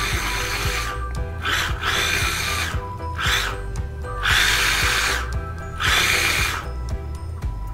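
KitchenAid mini food processor whirring as it is pulsed in a string of short bursts, its blade mixing graham cracker crumbs with sugar and melted butter. A longer run stops about a second in, and four or five short pulses follow until near the end.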